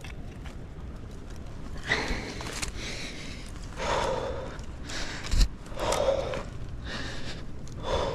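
A climber breathing hard with effort, a loud breath about every two seconds, and a single sharp knock about five seconds in.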